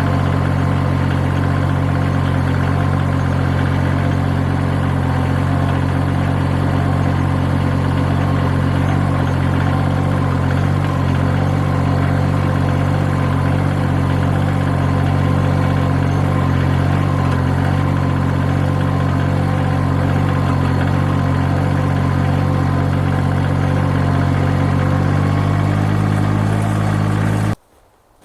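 Tractor engine idling steadily, then cutting off suddenly just before the end.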